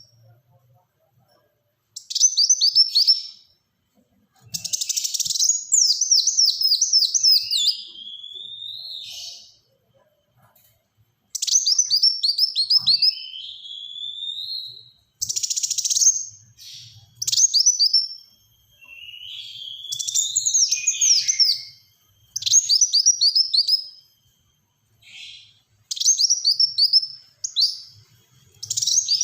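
Kolibri wulung, a sunbird, singing loudly in rapid bursts: about a dozen short phrases, each a fast run of high, sharply falling notes, some ending in slurred rising notes, with brief pauses between them.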